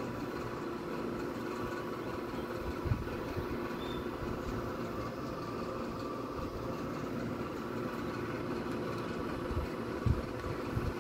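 A steady mechanical hum at one constant pitch, like a motor running, with a couple of dull low bumps about three seconds in and near the end.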